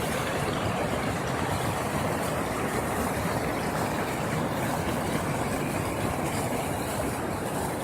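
Steady rush of a fast-flowing mountain river, an even, unbroken noise of water.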